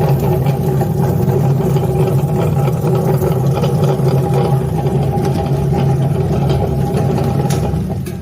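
Electric potato peeling machine running, its motor giving a steady hum with a rough grinding texture over it. It eases off slightly near the end.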